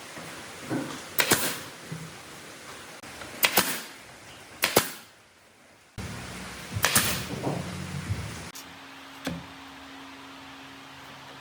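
A series of sharp, loud knocks, about four of them in the first seven seconds, followed by a steady low hum.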